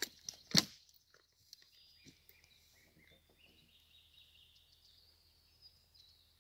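Two sharp knocks in the first second, then quiet woodland ambience with faint, thin birdsong.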